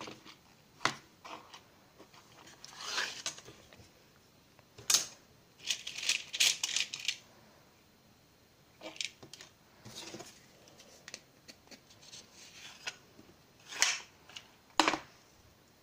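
Wooden pick-up sticks and their small wooden box handled on a tabletop: scattered sharp wooden clicks and short scrapes, with a quick run of rattling clicks about six to seven seconds in.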